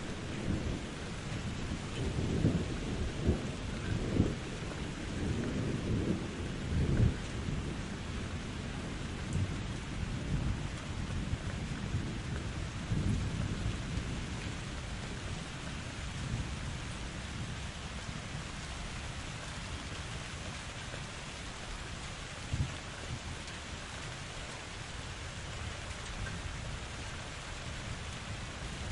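Steady rain with rolling thunder rumbling through the first half, strongest a few seconds in, then settling to rain alone with one brief low rumble later on.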